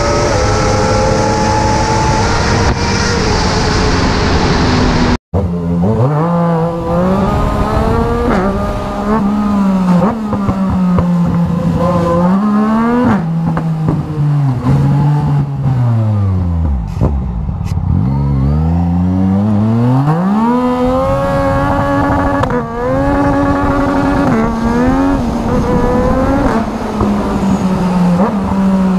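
Sport motorcycle engines running hard. First a group of bikes passes at speed with wind hiss, then after a brief dropout about five seconds in, one motorcycle is heard from the rider's seat. It revs up through the gears again and again, its pitch climbing and dropping at each shift, falls almost to idle around the middle, then accelerates once more.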